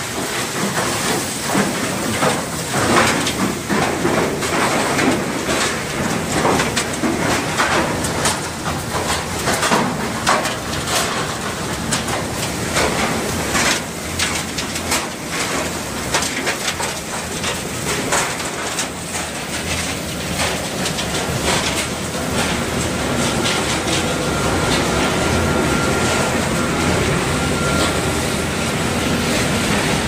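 Cross flow chain shredder running while it crushes washing machines and refrigerators: a loud, continuous rattle and clatter of shredded fragments hitting the steel housing and pouring onto the conveyor. About two thirds of the way in the clatter thins to a steadier running noise with a faint high whine.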